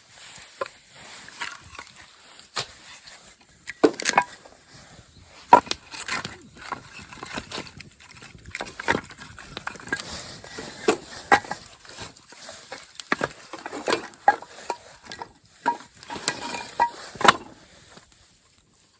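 A series of irregular sharp knocks and clicks, a few of them ringing briefly.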